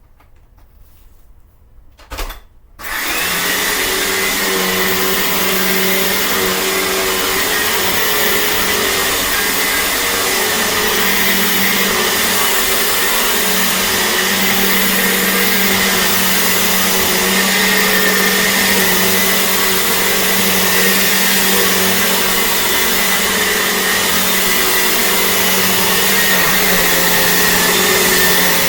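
A Dirt Devil Classic vacuum cleaner is switched on about three seconds in, just after a click. It then runs steadily, with a hum and a high whine.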